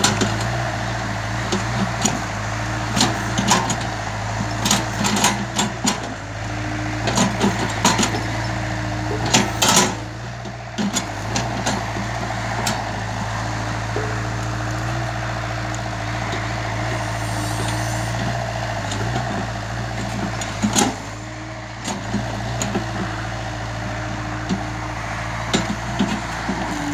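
Hitachi Zaxis 48U mini excavator's diesel engine running steadily under load while it digs, with a hydraulic hum that comes and goes as the boom and bucket move. Scattered clanks and knocks from the bucket and arm working the soil.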